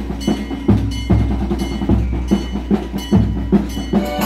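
Percussion-led music: a fast run of clacking strokes over deep drum booms that come about once a second.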